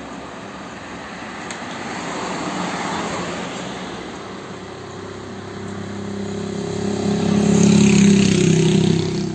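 Motor vehicles passing on a paved road: a red van drives by a few seconds in, then a louder vehicle with a steady engine hum and tyre hiss comes close and passes near the end.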